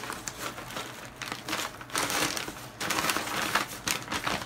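Brown packing paper crinkling and rustling in irregular bursts as it is handled around coilover parts, loudest about two seconds in.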